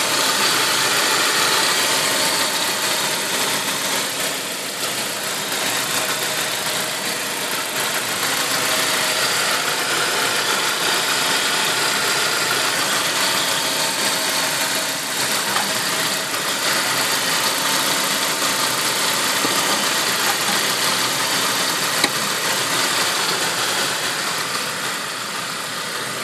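Saab 9-5's turbocharged engine idling steadily while not fully warm, with a strange noise whose source the owner cannot find. A single sharp click near the end.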